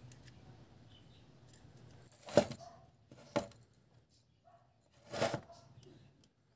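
Three short knocks and rustles of wires being handled against a metal amplifier chassis, the middle one a sharp click.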